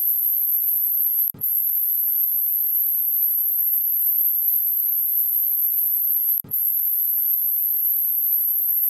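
Steady, very high-pitched electronic tone played as a dog-whistle sound, near the top of human hearing. It cuts out twice for an instant with a click, about a second and a half in and again near six and a half seconds, then carries on unchanged.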